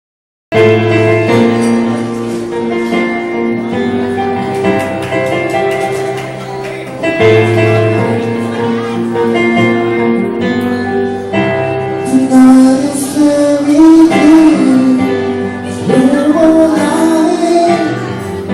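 Live acoustic band music: an instrumental opening of repeated strummed chords, with a singer's voice coming in about twelve seconds in.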